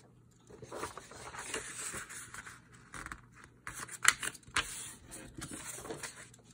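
Sheets of paper sliding and rustling on a desk as one written page is swapped for another, with scraping and a sharp tap about four seconds in.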